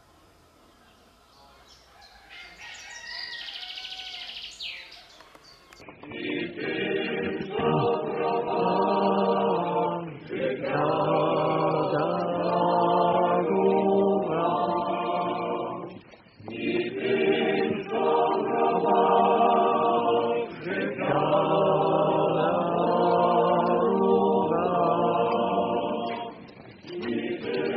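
Birds chirping faintly for a few seconds, then a choir singing a chant in phrases a few seconds long, with short pauses between phrases.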